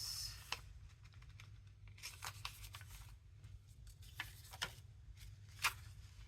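Paper pages being handled and sorted: a short sliding rustle at the start, a cluster of rustles about two to three seconds in, and a few light taps, the loudest near the end.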